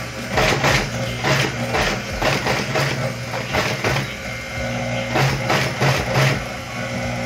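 Industrial sewing machine stitching a bag panel in short bursts as the seam is guided around a curve, its motor humming steadily underneath.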